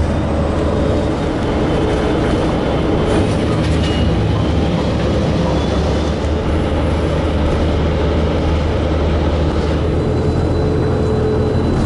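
Steady engine hum and tyre and road noise of a car driving along, heard from inside the cabin.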